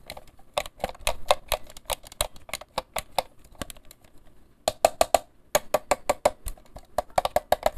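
Fingers tapping on the plastic earcup shells of a Gamepower Fujin 7.1 gaming headset: a quick, irregular run of light plastic clicks with a short pause midway. The hollow sound is the sign of thin, low-quality plastic.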